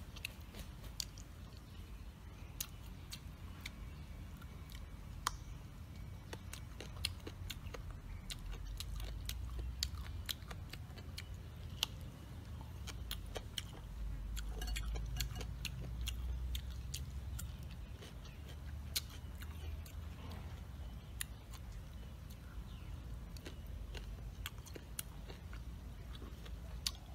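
Close-up chewing of crunchy animal ear, the cartilage crunching in many irregular sharp clicks.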